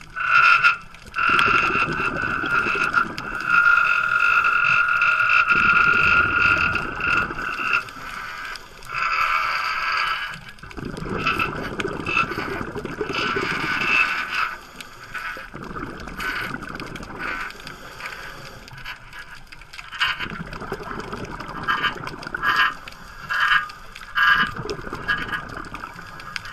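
Scuba diver breathing through a regulator underwater: a hissing inhale followed by a burst of rough, bubbling exhaled bubbles, repeating every several seconds.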